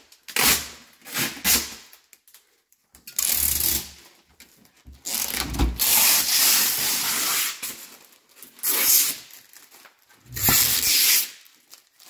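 Clear protective plastic film being peeled off a stainless steel refrigerator door, crinkling in several noisy bursts with short pauses between them.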